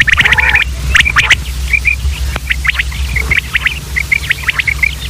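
Common quail calling over and over: many short, sharp notes in quick, uneven succession, with a steady low hum underneath.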